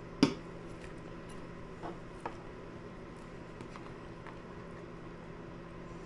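A metal eating utensil knocks sharply against a bowl once, followed about two seconds later by a couple of softer taps and scrapes as food in the bowl is turned and broken up.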